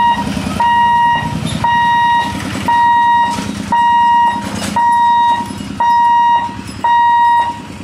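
Level-crossing warning hooter beeping about once a second, each beep a steady electronic tone a little over half a second long, with a low rumble underneath.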